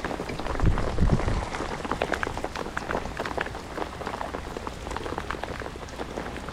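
Rain falling steadily, a dense patter of many separate drops, with a couple of low thumps about a second in.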